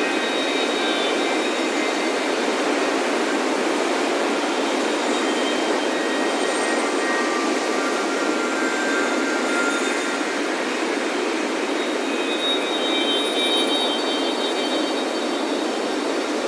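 Ocean surf making a steady, unbroken wash, with metal wind chimes ringing scattered high tones over it.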